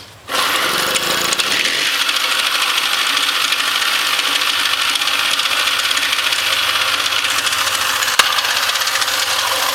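Puch Maxi moped's ZA50 50 cc two-stroke engine comes in suddenly just after the start and runs steadily at idle with a rapid, terrible clacking. The owner cannot tell what causes it.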